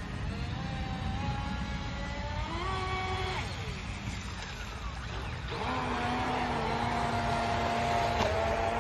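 Electric motor and propeller of a HobbyKing Aquaholic V2 RC speedboat whining on the water. The pitch climbs with the throttle, drops away about three and a half seconds in, then comes back a couple of seconds later as a steady high whine.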